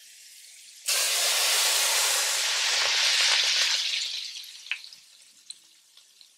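Hot desi ghee tadka (baghar) with fried garlic and red chillies poured into a pot of dal, setting off a sudden loud sizzle about a second in that dies away over the next few seconds.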